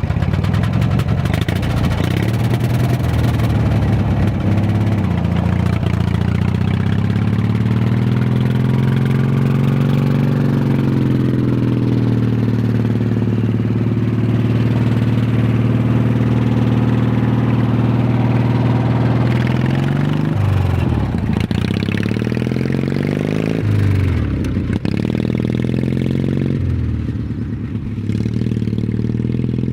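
Small Craftsman lawn tractor engine running hard through exhaust pipes capped with crushed drink cans, which are meant to add a rattle. Its pitch climbs and falls with the throttle, then drops sharply three times near the end.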